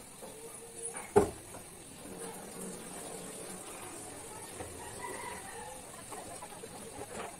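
An aluminium pot of cooked rice knocks sharply against the sink about a second in. Then the rice's starch water runs off into the sink as a faint steady pour, the pot held tilted to drain it.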